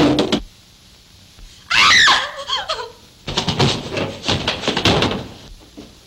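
A single gunshot, then about two seconds in a man's loud, falling cry of pain, followed by a clatter of knocks and thuds as a body crashes down against a table and chairs.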